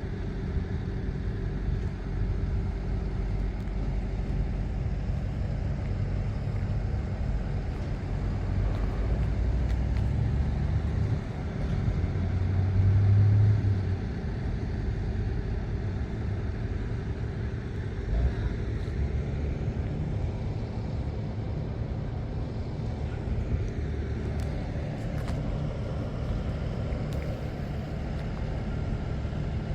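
Rice combine harvester's engine running steadily with a constant hum, briefly louder near the middle.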